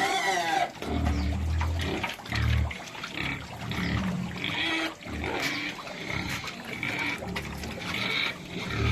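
Desi (native Indian) pigs grunting in short low bursts, with some higher-pitched calls in between.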